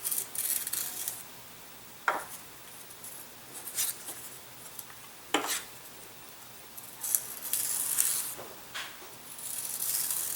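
Aileron edge being beveled by hand: a few bursts of dry scraping strokes with a couple of sharp clicks in between.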